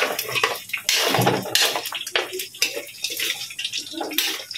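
Metal spatula scraping and knocking against a large metal wok as pieces of pork sizzle while being stirred and browned.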